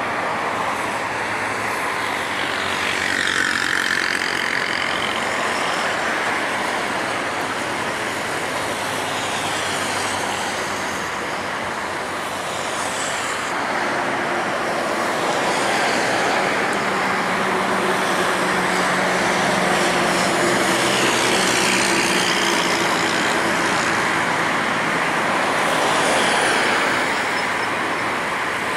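Boeing 747-8F freighter's four GEnx turbofan jet engines during landing: a steady loud roar with whining tones gliding in pitch, swelling somewhat in the second half as the aircraft touches down and rolls out.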